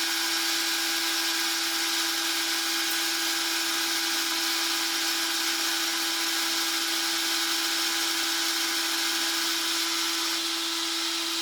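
Metal lathe running steadily under a light facing cut across a half-inch steel plate: a constant motor and gear whine over a steady hiss.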